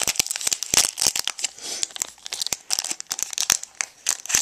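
Foil Pokémon booster pack wrapper crinkling and tearing as it is opened by hand: a dense run of sharp crackles.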